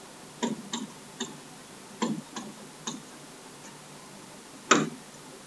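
Pen stylus tapping and clicking on a tablet screen while writing digits, a few short separate ticks with a louder tap near the end.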